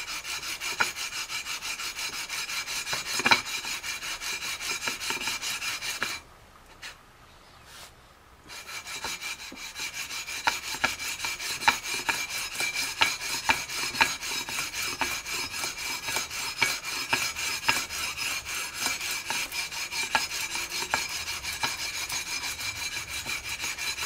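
Fine-grit sandpaper on a long aluminium leveling beam rubbed back and forth over EVO gold fret wire on a guitar neck, a steady scratchy rasp with small knocks at the stroke turns: fret leveling. It stops for about two seconds around six seconds in, then resumes.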